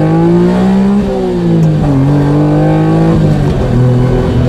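Honda Beat's three-cylinder engine heard from inside the cabin, accelerating hard through the gears on freshly changed oil: the pitch climbs, drops back with each upshift (about a second in, around two seconds and again past three seconds), then runs steadier near the end. It revs cleanly, as the owner puts it.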